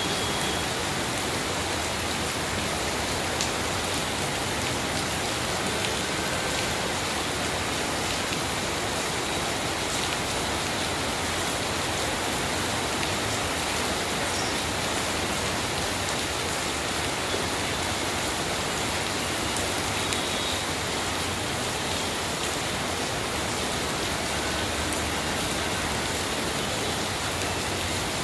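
Steady heavy rain falling and pattering on hard surfaces, an even hiss with scattered drop ticks.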